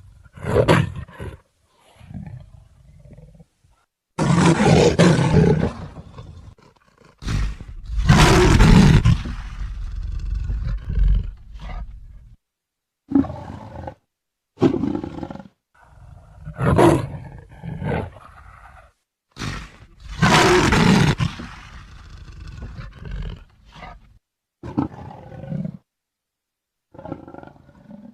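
Leopard roaring: a series of separate calls of varying length with short silences between them, the longest lasting several seconds each, about a third and two-thirds of the way through.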